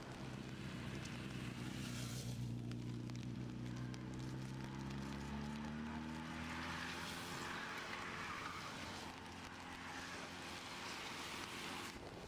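A car engine running steadily as it passes, its note sinking slightly. Tyres hiss on the wet road, swelling about halfway through.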